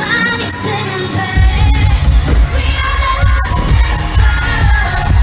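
Live K-pop concert music heard from the audience: female vocals over a live band, with a heavy bass beat coming in about a second in.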